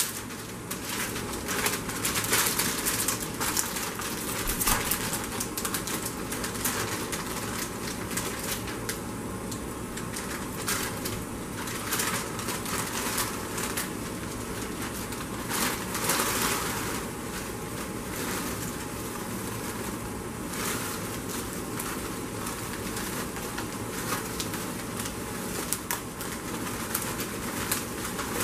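Plastic snack bag of cheese puffs crinkling and rustling as the puffs are poured into a plastic baggie, in irregular spells, loudest about 2, 12 and 16 seconds in.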